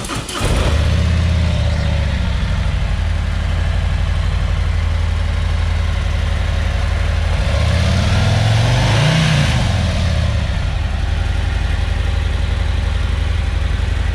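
The 2018 Harley-Davidson CVO Street Glide's Milwaukee-8 117 V-twin is started and settles into a steady idle. About eight seconds in it is revved once, the pitch rising and falling, then it drops back to idle.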